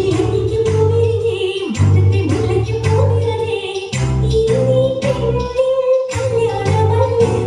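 Music: a song with a female voice singing long, wavering held notes over a repeating bass beat, the backing dropping out briefly a few times.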